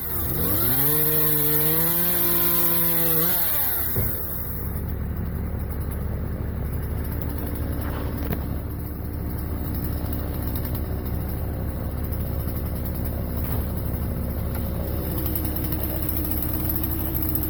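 Two-stroke chainsaw revved up to full throttle for about three seconds, then dropping back, with a steady low engine running underneath.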